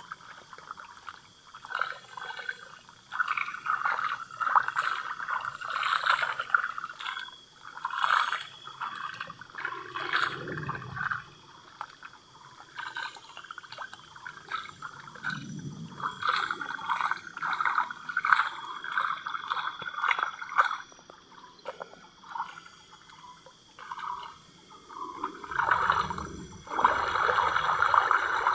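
Water sloshing and trickling in a gold pan as it is swirled, in repeated uneven surges with small clicks of gravel, strongest near the end.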